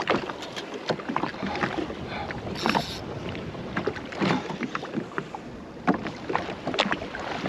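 Water slapping and lapping irregularly against the hull of a drifting Sea-Doo jet ski, with wind on the microphone and a brief high hiss about three seconds in.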